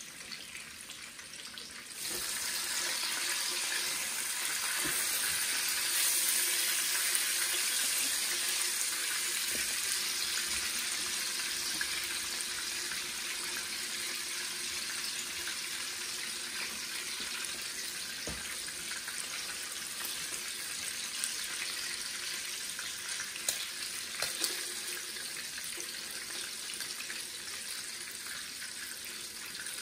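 Blacktail venison backstrap frying in a hot skillet: a steady sizzle that jumps louder about two seconds in and then slowly eases, with a few light clicks a little past the middle.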